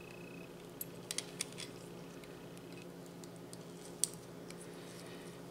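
Small, faint metallic clicks of a steel probe working a retention clip into place on a Craftsman round head fine tooth ratchet head: a quick cluster about a second in and one sharper click near four seconds. A steady low hum underlies it.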